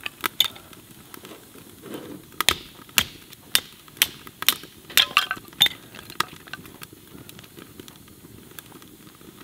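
Gränsfors axe splitting firewood into kindling: a series of sharp wooden knocks, about a dozen in the first six seconds, then it goes quieter.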